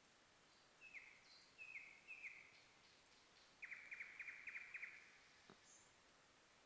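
A bird calling faintly at night: three short down-slurred notes, then a quick run of about eight rapid notes. The uploader takes it for a lapwing.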